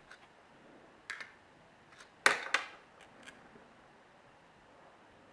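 Several small, sharp clicks and taps of a tool against the parts as the motherboard is prised out of an iPhone 3G, the loudest a pair about two and a half seconds in and another near the end.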